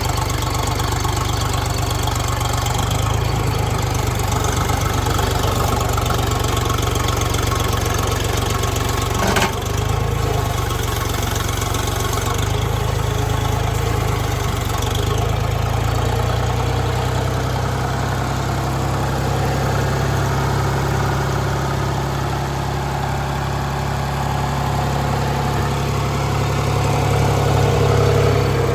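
John Deere backhoe engine idling steadily, with a single sharp click about nine seconds in.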